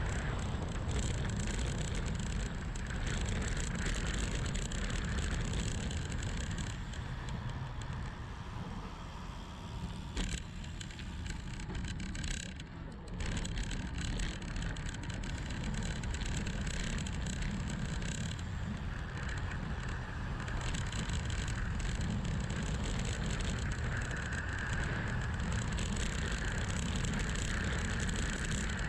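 Wind rushing over the camera microphone with tyre noise from a bicycle descending a paved mountain road at speed. The rush dips briefly about ten to thirteen seconds in, then comes back to full strength.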